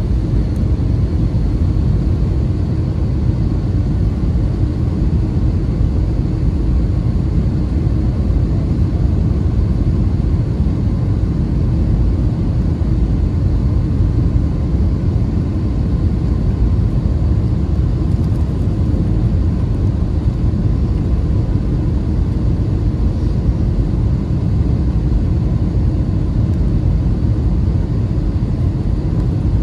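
Steady cabin noise of an Airbus A320-family airliner descending on approach: a dense low rumble of engines and rushing air, with a faint steady high whine above it.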